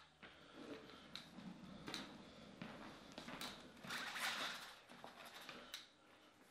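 Faint clicks and knocks of a small two-wheeled Soundcart Mini sound cart being wheeled over a wooden floor and set in place, with a louder, noisier stretch about four seconds in.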